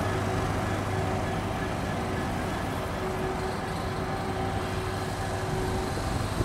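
Class 66 diesel locomotive's two-stroke V12 engine running at low power as it moves slowly, a steady low drone with faint steady tones above it.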